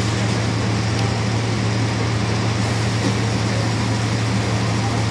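Mercedes-Benz 1724L bus (Caio Apache Vip 4 body) running steadily, with one unchanging low drone over a constant rushing noise. The loud drone is typical of a noisy differential.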